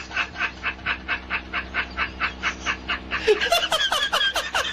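A man laughing uncontrollably: rapid, breathy high-pitched cackles about five a second, turning into shriller squealing whoops about three seconds in.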